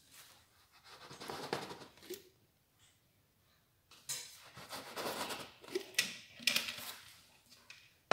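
A cutting tool scraping and clicking against the work surface as rolled-out pastry dough is cut, in two spells of short rasping strokes with a pause between.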